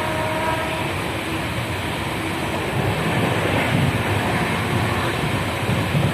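Passenger train running along the track, a steady rumble and rattle of wheels on rails heard from on board. It grows a little louder about halfway through. A faint high tone fades out within the first second.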